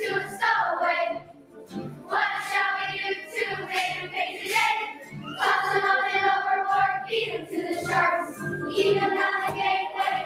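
Children's choir singing a song with musical accompaniment, with a short break in the singing about a second in.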